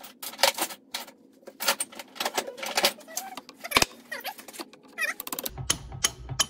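Irregular metallic clicks and squeaks, then from about five and a half seconds in, light hammer taps about three a second over a low rumble. The taps are driving the pressed-in, heated wrist pin out of a 1957 Harley-Davidson flathead piston with a socket.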